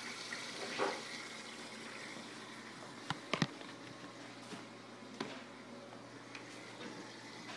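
Steady splashing and trickling of running aquarium water, with a couple of sharp knocks from the phone being handled about three seconds in.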